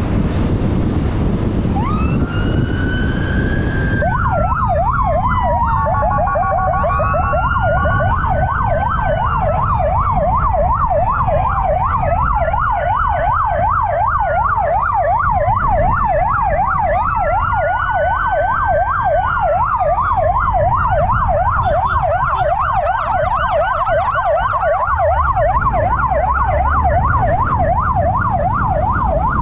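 Police motorcycle siren with a fast yelp sweeping up and down about three times a second, overlaid with slower rising-and-falling wail sweeps. A steady low rumble from the riding bike runs underneath.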